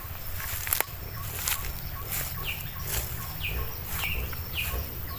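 Forest ambience: a bird giving short falling calls, four of them in the second half, over footsteps on a leafy path and a faint steady ticking.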